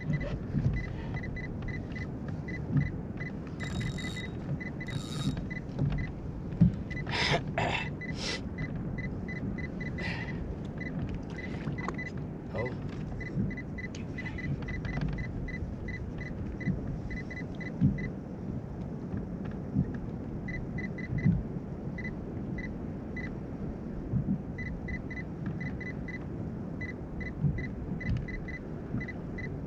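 Wind rumbling on the microphone over water around a kayak, with runs of faint quick clicks from a spinning reel being cranked. A few louder rattles come in the first eight seconds.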